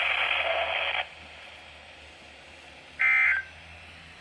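Weather-radio static that cuts off about a second in, then near the end a short burst of warbling digital data tones, the first of the Emergency Alert System end-of-message bursts that close a NOAA Weather Radio test.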